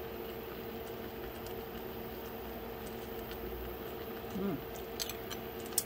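Pan of chicken noodle soup simmering on the stove: a steady soft hiss over a low, even hum.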